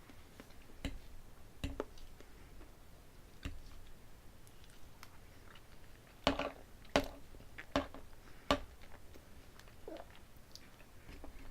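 A person eating close to the microphone: quiet chewing with scattered sharp clicks, and four louder clicks a little under a second apart just past the middle.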